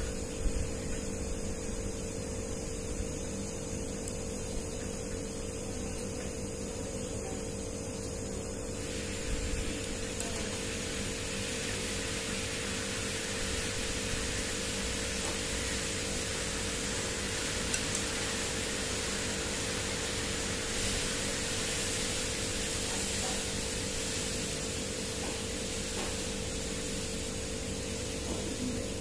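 Steady background hiss with a low steady hum, turning a little louder and brighter about nine seconds in.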